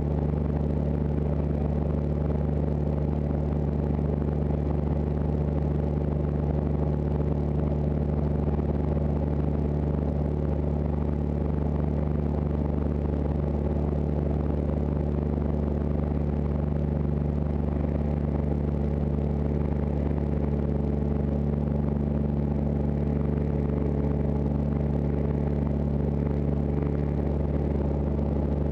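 Van's RV-6 light aircraft's piston engine and propeller droning steadily in flight, heard from inside the cockpit.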